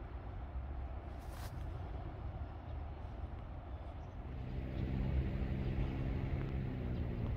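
A passing vehicle humming steadily, coming in about four seconds in over a constant low rumble.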